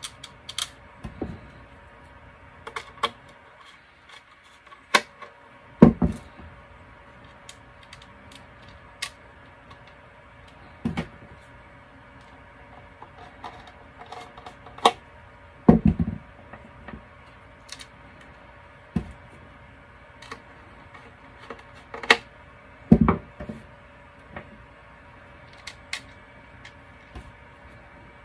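Irregular clicks and light knocks of a hand screwdriver and screws being worked into a lighting controller's circuit board, with three heavier knocks with a dull thump among them. A faint steady hum runs underneath.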